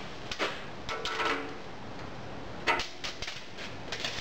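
A few faint scrapes and clicks from a steel tape measure as it is pulled out and laid across the rim of a metal mixing bowl, over a steady background hiss.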